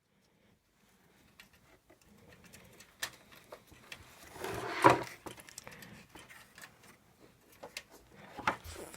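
Small clicks and knocks of toaster parts being handled and fitted together, with a louder brief rattling noise about five seconds in.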